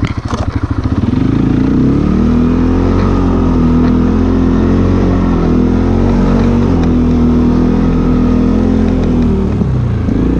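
ATV engine running at idle, then revved up about a second in and held at high revs for most of eight seconds before dropping back toward idle near the end.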